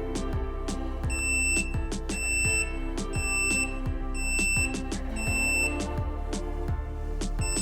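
The wireless receiver's buzzer beeping: a high-pitched beep about half a second long, repeated about once a second, five times from about a second in. Background music with a steady beat plays underneath.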